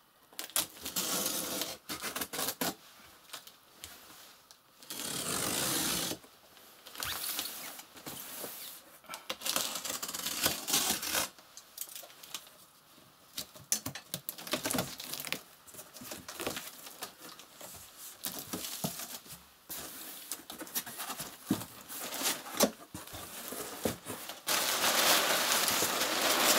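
A box cutter slitting packing tape on a cardboard shipping box, in a series of rasping strokes and small clicks, then the tape tearing free and the cardboard flaps scraping open near the end.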